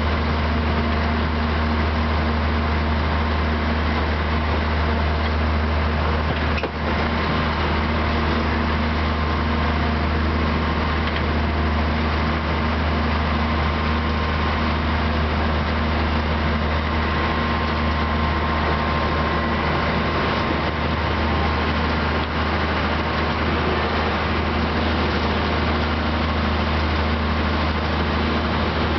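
Narrow-gauge diesel locomotive's engine running steadily with a deep, even hum.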